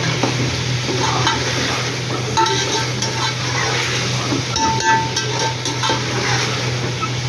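Food frying and sizzling in a pot while a spoon stirs it, with short metallic scrapes against the pot about two and a half seconds in and again near five seconds, over a steady low hum.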